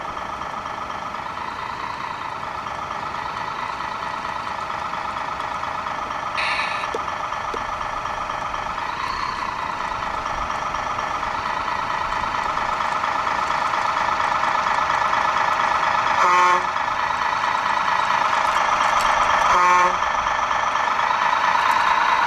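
Radio-controlled model Peterbilt truck driving toward the listener, a steady whine that grows louder as it comes closer. A brief hiss about six seconds in, and two short horn blasts about three seconds apart in the last third.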